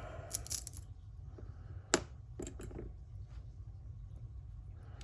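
Small metal parts of a Schlage Primus lock cylinder clicking and clinking as it is taken apart by hand: a few quick clicks near the start, one sharp click about two seconds in, the loudest, then a few softer ones.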